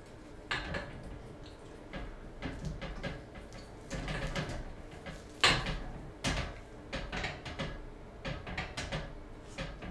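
Irregular knocks, clatter and rustling as a small dog kicks and struggles in a fabric hammock sling hung from a metal barbell while its nails are being trimmed; the sharpest knock comes about five and a half seconds in.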